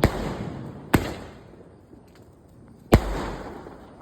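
Cock Brand firecrackers going off: three sharp bangs, the first two about a second apart and the third about two seconds later, each with a rumbling echo that dies away.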